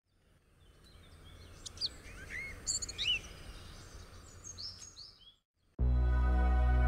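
Birds chirping over a faint steady hiss: a scatter of short rising and falling chirps that fade in and out over about five seconds. After a brief gap near the end, ambient music with deep sustained bass notes starts abruptly and is louder than the birds.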